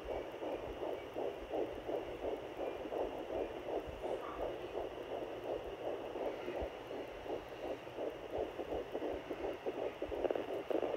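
Fetal heartbeat at 10 weeks through a handheld fetal Doppler's speaker: fast, even whooshing pulses, several a second, over the device's hiss. The owner takes it as sounding very healthy.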